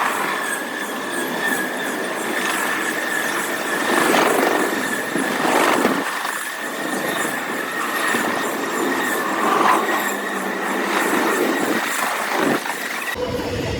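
CSX freight train cars rolling past with a steady, high-pitched wheel squeal and a few sharp clanks. Near the end the sound cuts abruptly to a deeper, lower rumble.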